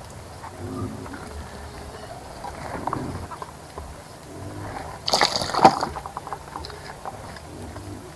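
A bird bathing in a garden bird bath, splashing and sloshing the water, with a louder flurry of splashing about five seconds in.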